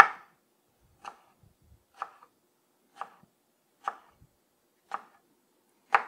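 Kitchen knife chopping a bundle of pickle spears into small pieces on a wooden cutting board: seven sharp knocks of the blade on the board, about one a second, the first and last the loudest.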